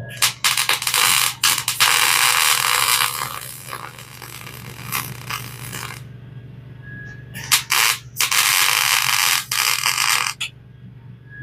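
Electric arc welding on steel brackets: the arc crackles and sizzles in several short tacks and two longer beads, one about two seconds in and one about eight seconds in. A steady low hum runs underneath.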